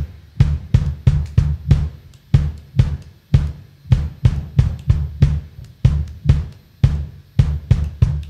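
Live instrumental rock band: a drum kit beating a steady pattern of kick, snare and hi-hat hits, about two a second, under a finger-plucked electric bass line.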